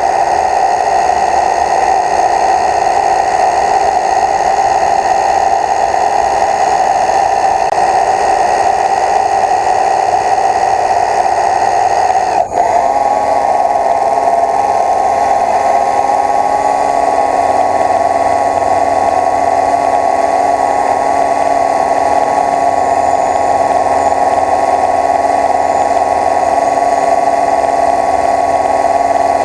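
Small quadcopter drone's propellers and motors humming steadily, a loud whine of several even tones. The sound breaks off briefly about twelve seconds in, then comes back with the pitch slightly shifted.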